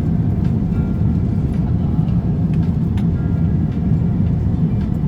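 Steady low roar of an airliner cabin in flight: constant engine and airflow noise, with a few faint tones and light clicks above it.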